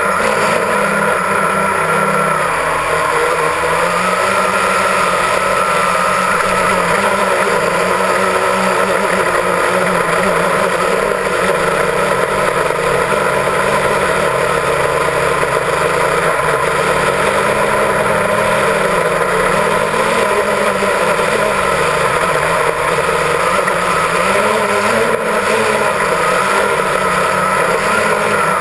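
Quadcopter drone's motors and propellers running in flight, a steady buzzing whine whose pitch wavers slightly up and down as the motors adjust speed.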